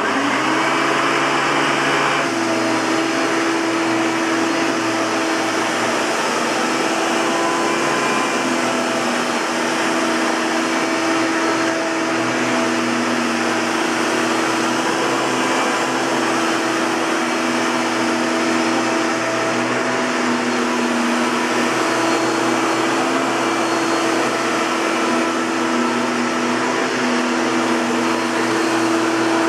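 Hoover Caddy Vac Elite bagged upright vacuum cleaner switched on and running steadily with a motor hum and airflow hiss. Some of the higher hiss drops away about two seconds after start-up.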